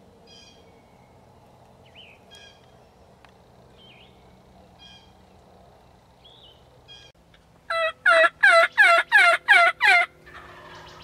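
Wild turkey calling: about three-quarters of the way in, a run of about seven loud, evenly spaced notes, each falling in pitch.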